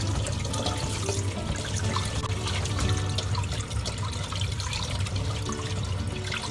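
Kitchen tap running into a pot of water, splashing and trickling as whole fish are rinsed and turned by hand under the stream.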